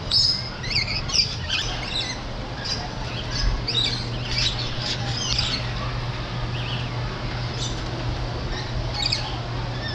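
Parrots squawking and chirping in quick, overlapping calls, busiest in the first half. A steady low hum runs underneath.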